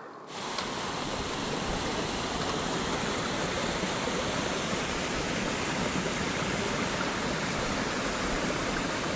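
Steady rush of fast-flowing stream water, an even hiss that starts abruptly just after the start and holds at one level.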